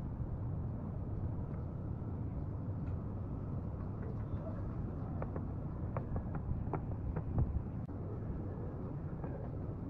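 Steady low background rumble with a faint hum, with a handful of light clicks and taps about halfway through.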